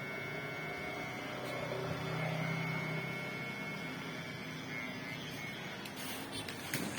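Kemei 1986 electric hair clipper running with a steady hum during a haircut, with a few light clicks near the end.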